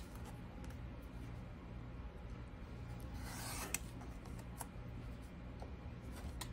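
Rotary cutter blade rolling through fabric along a ruler edge on a cutting mat: a soft rasping cut about three seconds in that ends in a sharp click, then a few lighter ticks, over a faint steady low hum. The pieces are being trimmed square, cutting off the dog ears of half-square triangles.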